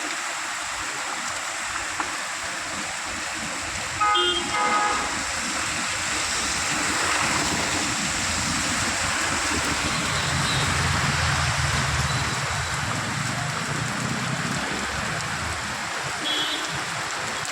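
Heavy rain pouring steadily, a dense hiss throughout. About four seconds in there is a brief pitched toot, and a low rumble builds and fades in the middle.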